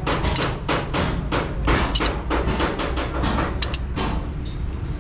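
Rapid metallic clicking and clacking, several knocks a second, some with a short high ring, as a lever-type valve spring compressor works the valve springs on an Isuzu diesel cylinder head. A steady low rumble runs underneath.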